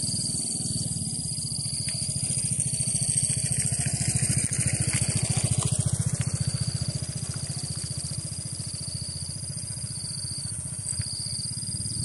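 An engine running with a rapid, even pulse, growing louder to about halfway and then easing off, like a vehicle passing. A steady high-pitched buzz runs underneath, broken by a few short gaps.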